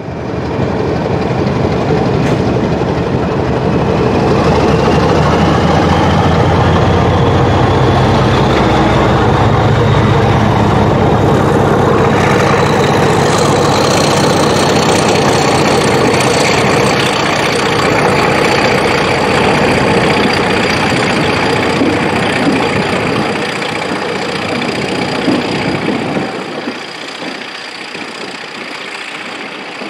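Class 31 diesel locomotive's English Electric V12 engine working hard at full power, a loud steady thrash with a high whine rising in pitch over the first half as it comes through beneath. The engine sound drops away sharply near the end as the locomotive passes and the coaches roll by.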